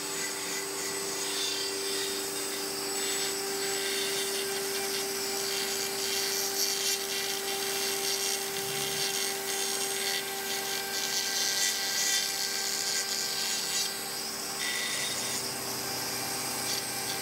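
Flexible-shaft rotary carving tool cutting into olive wood: the motor holds one steady hum while the bit's grinding hiss swells and fades as it bites into the carving.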